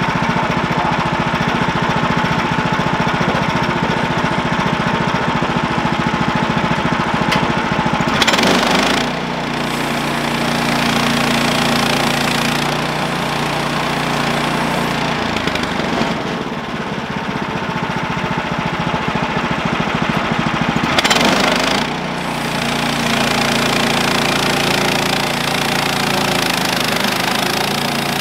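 Portable bandsaw mill's gas engine running steadily, with two brief louder surges about eight and twenty-one seconds in. Near the end the band blade starts cutting into the log.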